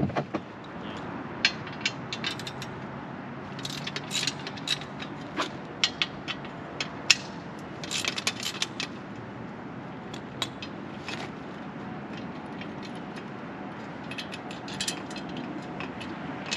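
Hand tools working on a metal seat bracket and rails: short runs of ratchet clicks and scattered metal clinks, coming in bunches a few seconds apart.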